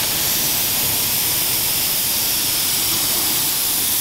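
Compressed-air paint spray gun hissing steadily as it sprays primer onto a car body panel.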